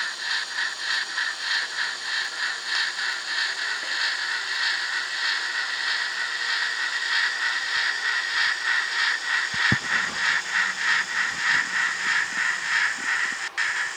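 Model steam locomotive's DCC sound decoder playing steady, rhythmic steam exhaust chuffs with hiss, about three to four beats a second, through the locomotive's small speaker. The sound drops out for a moment near the end, and a few light knocks come about ten seconds in.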